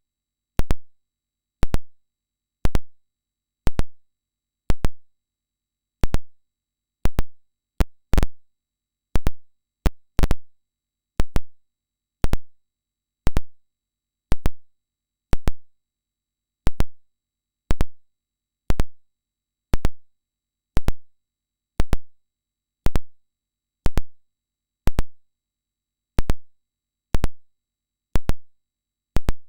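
Sharp ticks about once a second from a hearing-test tone switching on and off; no tone shows alongside them, only the switching clicks.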